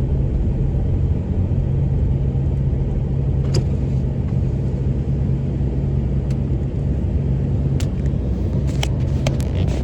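Steady low road and engine rumble heard inside a moving car's cabin, with a few short faint clicks in the second half.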